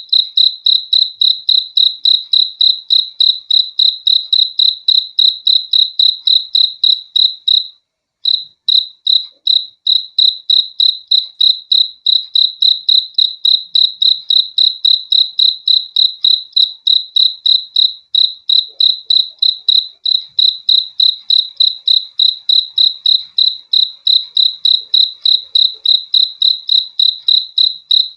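A cricket chirping in a steady, even rhythm of about three to four short, high-pitched chirps a second, all on one tone. It breaks off for about half a second around eight seconds in, then carries on.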